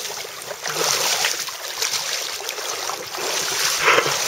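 River water rushing, with splashing from a hooked steelhead thrashing at the surface.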